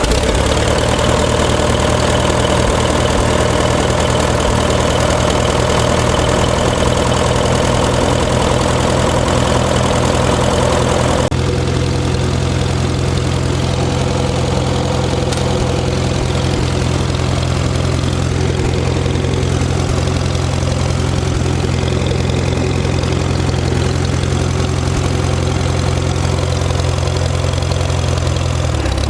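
Jeep engine idling steadily just after being started; a little over ten seconds in, the sound eases and settles into a lower, smoother idle.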